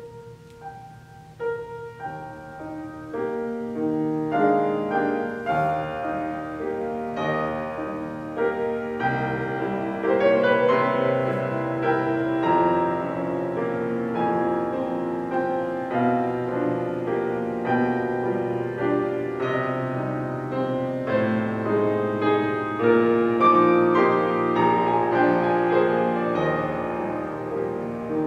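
Grand piano played solo: a piece begins with a few single notes, then fills out into fuller chords and running notes as it grows louder over the first few seconds.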